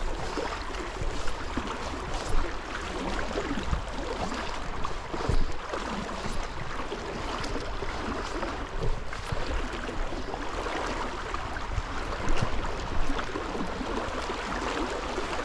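Shallow river current rushing and sloshing close to the microphone, a steady hiss of moving water with irregular louder splashes.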